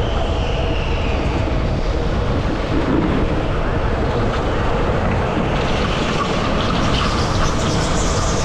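Indoor rental go-kart driving on track: a steady rush of tyre and wind noise with a faint motor whine that shifts in pitch.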